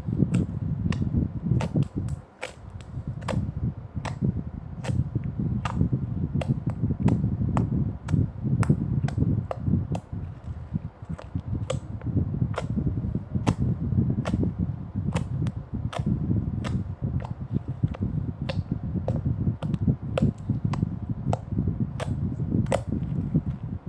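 Slime being squished and worked, with a steady low squelch and many sharp little clicks and pops, several a second.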